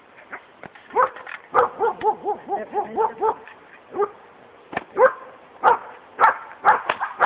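Belgian Malinois puppy barking and yipping: a quick run of short yaps, about four a second, then single sharper barks at uneven intervals.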